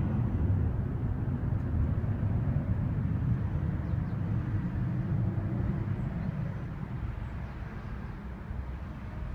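A low, steady outdoor rumble that slowly fades over the last few seconds.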